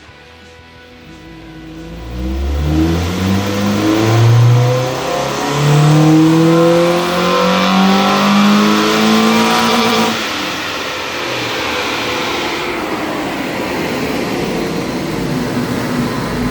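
Honda EK Civic's D-series four-cylinder engine on a chassis dyno during a wide-open-throttle power run: the engine note climbs steadily for about eight seconds, then drops off sharply as the throttle closes and it runs down. The run follows resetting the ignition timing to the damper mark, a change the engine clearly doesn't like.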